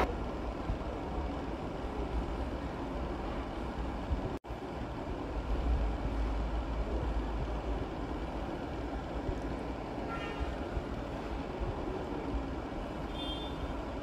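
Steady low rumbling background noise, broken by a momentary dropout about four seconds in.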